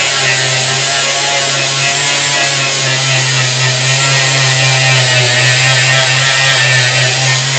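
An electric power tool running steadily at full speed, with a guitar song playing in the background.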